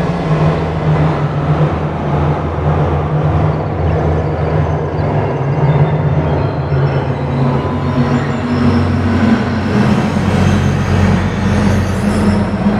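Dense, rumbling electronic drone from an ambient soundscape, with sustained low tones. The tones shift and a higher one joins about eight seconds in.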